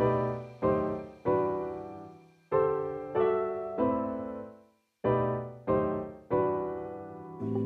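Background music: piano chords struck one at a time in slow groups of three, each left to ring and fade, with short rests between the groups. A new track with a steady low beat comes in near the end.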